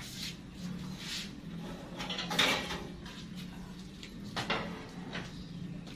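Wire grill rack clattering and scraping against a stainless-steel drum roaster as it is handled and lifted out: a few separate metallic knocks and scrapes, the loudest a little over two seconds in.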